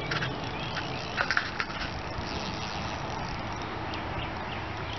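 Steady wind rushing on the microphone beside a pond, with a few sharp clicks right at the start and a quick cluster of them a little over a second in.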